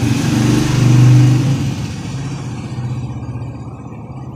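An engine's hum, swelling to its loudest about a second in and then fading, cut off abruptly near the end.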